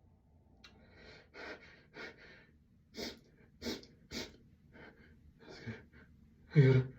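A person's quick, breathy breaths, about ten of them, a few sharp and hissing, ending in a louder voiced gasp near the end: the hitching breaths of someone working up to a sneeze.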